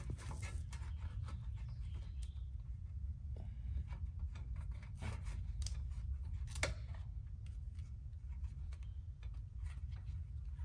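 Wind buffeting the microphone as a steady low rumble, with scattered crackling clicks of twigs and wood pieces being handled and stepped on, and one sharper snap a little past halfway.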